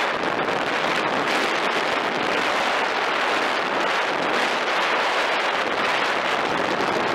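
Steady road and wind noise of a vehicle driving through a road tunnel, an even rushing sound that holds at the same level throughout.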